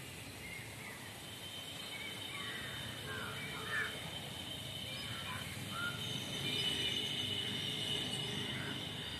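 Outdoor ambience of birds calling in short, scattered calls, over a low rumble. A steady high whine grows louder in the second half.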